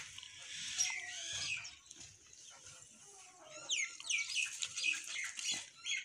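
Mynas and house sparrows calling: a busy mix of chirps, chatter and quick downward-sliding calls, thinning out for a second or so in the middle before picking up again.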